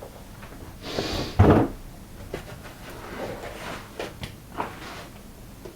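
Handling a boxed keyboard in its foam packing: one scraping swish about a second in, then a few light knocks and rubs of foam and cardboard.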